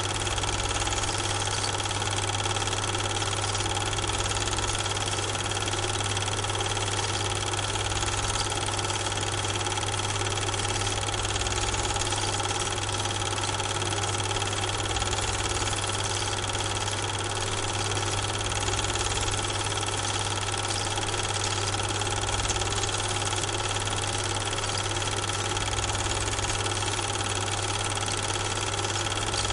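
Steady machine hum with hiss and a few fixed whining tones, unchanging through the picture's cuts. It is not the trains on screen, because the film is silent.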